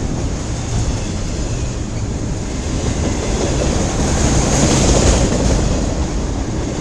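Cars of a long CN freight train rolling past, a steady noise of wheels on rails that swells slightly a little past the middle.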